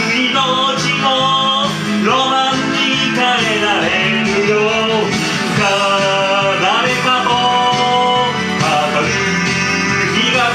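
Japanese anime opening theme song: a guitar band with a steady beat under a lead melody that slides and wavers in pitch.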